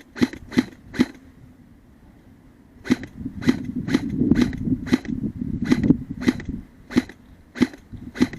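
Airsoft gun firing single shots, sharp clicks about two a second, with a pause of about two seconds after the first second.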